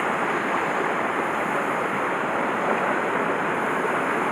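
Mountain stream water rushing, a loud, steady, even noise of flowing water.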